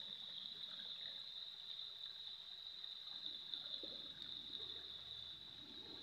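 Shallow forest stream trickling faintly over rocks, under a steady high-pitched hum.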